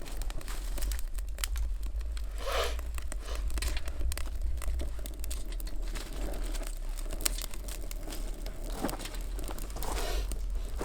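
Dry leaf litter and twigs rustling, crackling and crunching in quick irregular snaps, over a low steady rumble.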